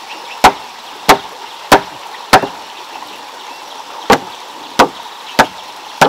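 Hammer blows on the wooden house frame: seven sharp strikes about two-thirds of a second apart, with a pause of over a second after the fourth.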